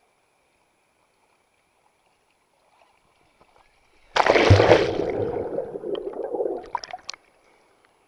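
A small sea wave breaking over a camera held at the water's surface: a sudden loud rush of splashing water about four seconds in, lasting about three seconds and cutting off abruptly.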